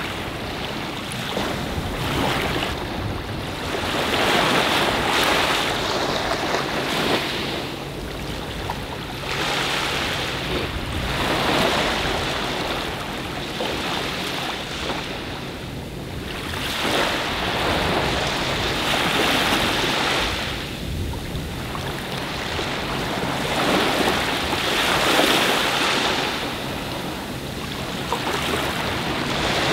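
Small waves washing up on a sandy beach, swelling and falling back every few seconds, with wind on the microphone.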